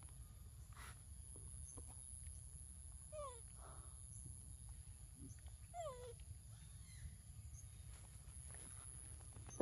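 Two short animal calls, each gliding down in pitch, about three seconds apart, over a faint low rumble and a steady very high whine.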